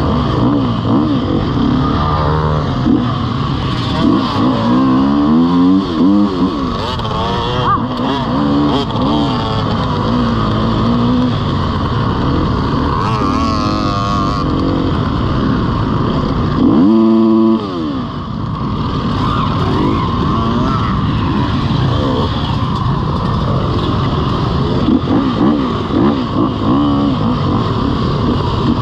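Dirt bike engine revving up and down as it is ridden, its pitch rising and falling with the throttle. About seventeen seconds in, one engine note is briefly louder and steadier.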